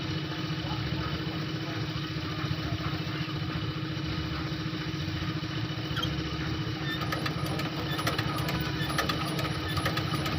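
A small engine running steadily at idle, with a rapid run of light clicks and ticks starting about seven seconds in.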